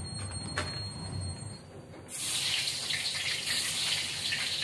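Nuggets going into hot cooking oil in a wok: a sudden sizzle starts about two seconds in and runs on as a steady hiss.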